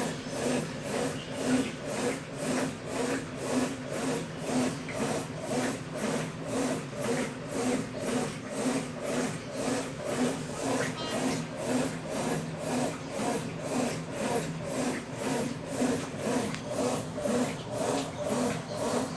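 Consul Facilite 10 kg washing machine agitating during a test run after a mechanical overhaul: a steady back-and-forth swishing churn, about two strokes a second.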